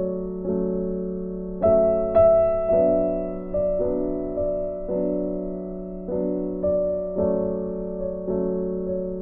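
Background music: piano playing a slow run of sustained notes and chords, with a new note about every half second to second and a louder chord about two seconds in.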